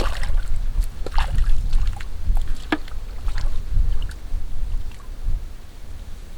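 Water sloshing and splashing, with scattered short knocks, over a steady low rumble.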